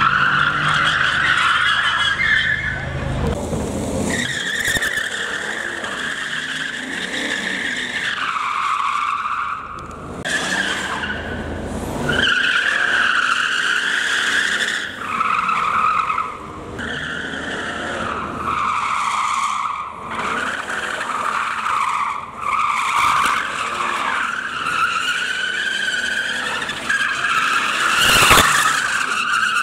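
Car tyres squealing as a car spins donuts and drifts. The screech wavers up and down in pitch, breaking off and starting again every few seconds. A brief loud burst of noise comes near the end.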